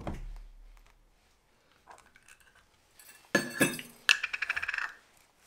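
A dull thud on a wooden cutting board at the start. About three seconds in, a set of metal measuring spoons on a ring jangles and clinks for about a second and a half as it is picked up.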